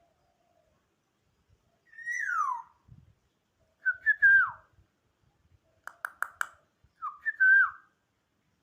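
Black-naped oriole (kepodang) giving clear, fluty whistled calls: three short phrases about two, four and seven seconds in, each sliding down in pitch at the end. A quick run of sharp clicks comes just before the last phrase.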